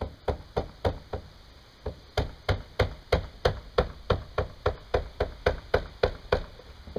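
Hammer knocking on the trailer bunk's welded metal edge flange, a run of about twenty evenly spaced strikes at roughly three a second, with a short break just over a second in, as the flange is driven off the bunk.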